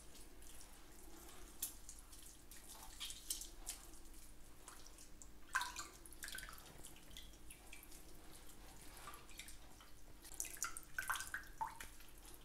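Water dripping and splashing into a bucket as a wet ball of wheat dough is squeezed and kneaded by hand, washing the starch out to leave gluten for seitan. The drips come in scattered spells, busiest near the end.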